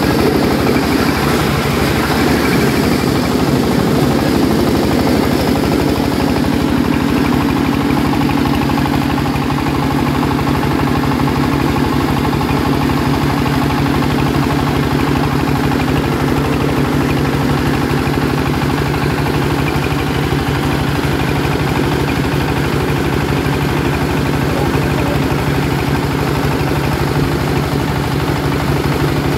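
SJ12 two-function corn sheller running steadily, a loud continuous mechanical drone.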